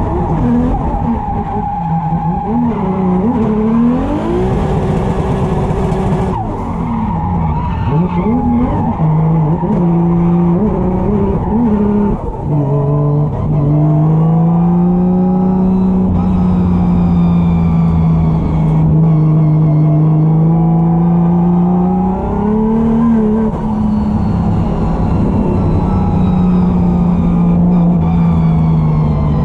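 Drift car's engine held at high revs, rising and falling sharply with throttle and gear changes early on, then held nearly steady through a long slide, with tires squealing.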